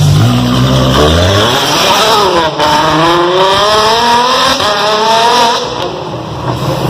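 Ferrari F12 Berlinetta's 6.3-litre V12 through an Armytrix valved exhaust, accelerating hard from low revs: the revs climb, drop at a gear change about two and a half seconds in, and climb again. Near the end the sound falls away as the car pulls off into the distance.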